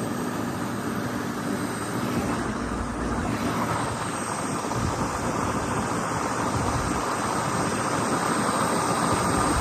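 Tractor engine running steadily as the tractor is driven along, a constant drone with no change in pace.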